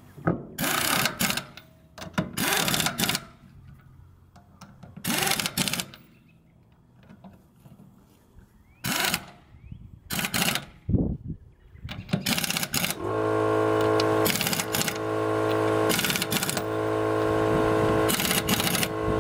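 Pneumatic impact wrench hammering in short bursts about a second long as it tightens a car wheel's lug nuts. A steady droning hum comes in about two-thirds of the way through, with more wrench bursts over it.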